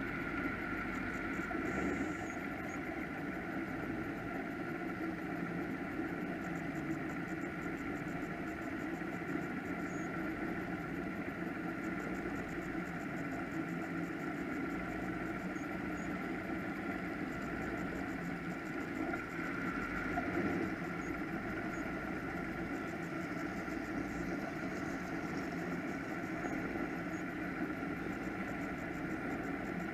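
Offshore powerboat engines idling steadily, a constant rumble with a steady tone running over it.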